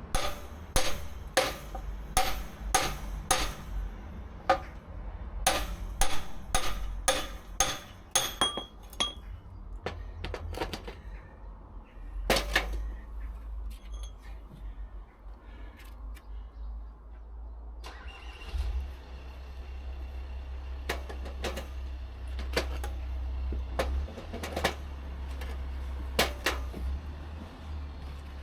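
A hammer striking metal with a ringing note, in runs of several blows about two a second: old bolts and nails being knocked out of oak beams. A steady low rumble runs underneath, and a single harder blow comes about halfway through.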